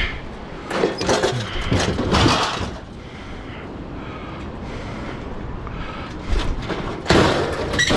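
Metal rattling and scraping from a stove's oven door being worked at its hinges, in several bursts: about a second in, around two seconds, and the loudest near the end. Wind buffets the microphone underneath.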